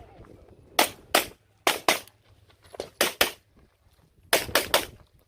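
Pistol shots fired in quick pairs, each pair two to three tenths of a second apart, about a second apart from the next pair, then a rapid string of four shots near the end. The shots are from a stock service pistol being fired through a timed IDPA stage, with a short echo after each.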